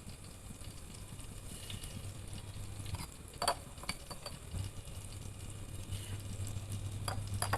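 Mustard and fenugreek seeds sizzling in hot oil in a pan, with scattered sharp pops as the mustard seeds splutter. A low steady hum runs underneath.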